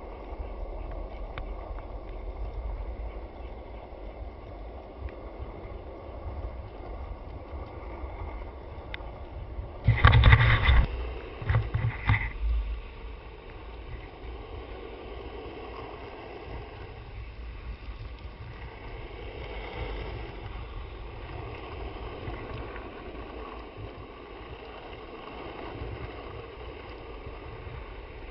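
Skateboard wheels rolling on asphalt, a steady rough rumble and hiss, with a louder, rougher burst about ten seconds in and a shorter one soon after.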